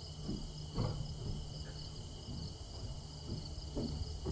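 Steady outdoor insect chorus of crickets, a constant high chirring, over a low hum, with a faint knock about a second in.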